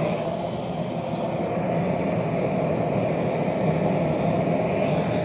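Steady low mechanical drone of forge-shop equipment running, with no pressing or hammer strikes.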